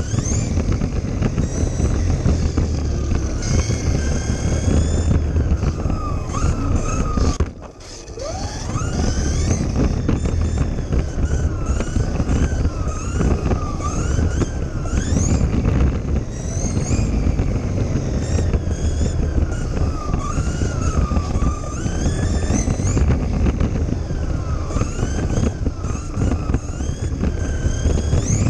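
Electric motor of a Kyosho Mini-Z RC car whining, its pitch rising and falling as the car speeds up and slows down, over a steady rumble of wheels and wind picked up by a GoPro mounted on the car. About seven and a half seconds in the sound briefly drops away, then the whine climbs again as the car accelerates.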